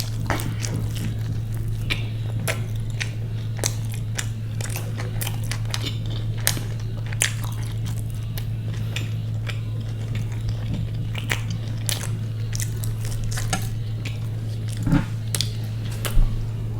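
Close-up mouth sounds of a person biting and chewing crunchy food: irregular sharp crunches and clicks, with a steady low hum underneath.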